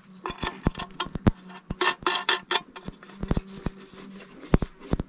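Irregular clicks and light metallic knocks of a metal battery box being handled and its lid shut, over a faint steady hum.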